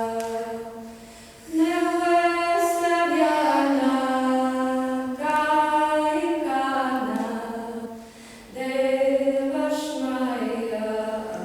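Voices singing long, wordless sustained tones a capella, sliding slowly between pitches, in long phrases with breath pauses about a second in and again about eight seconds in: ritual sound toning.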